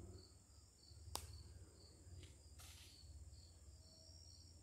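Faint insects chirping in a steady rhythm, about two to three short chirps a second, with one sharp click about a second in.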